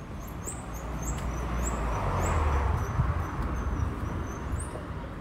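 A vehicle passing on the street, its noise swelling to a peak about halfway through and then fading, while small birds chirp repeatedly in short high rising notes.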